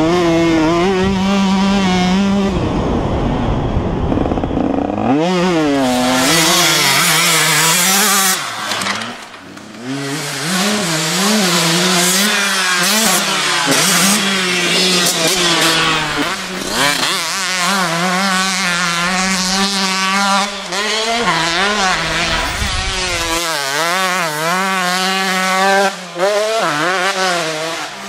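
Small motorcycle engines revving hard, a high buzz whose pitch keeps rising and falling as the throttle is opened and shut, with a brief lull about nine seconds in.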